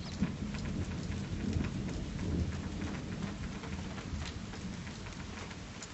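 Distant thunder rumbling low and slowly dying away, with scattered light taps of raindrops.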